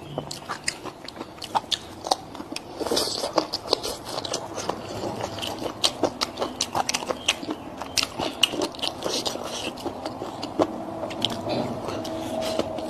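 A person chewing and biting crunchy food close to the microphone, with many sharp, irregular crunches.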